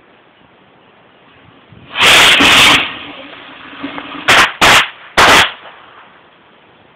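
Consumer fireworks lit in a bucket going off: a loud blast lasting nearly a second, a fizzing hiss, then three sharp bangs in quick succession.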